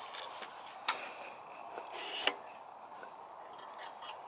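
Handling the parts of a BioLite camp stove, its steel mesh burn chamber and plastic power module: a sharp click about a second in, a short rustle ending in a louder click about two seconds in, and a few faint ticks near the end.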